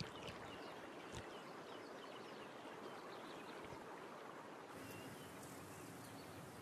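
Faint river ambience: a soft, even wash of water with scattered faint bird chirps and a light click about a second in. About two-thirds of the way through it changes to a brighter, fuller outdoor ambience of birds.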